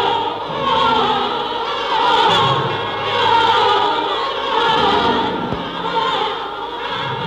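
Film soundtrack music with operatic choral singing, many voices held in wavering tones that swell and ease about every second and a half.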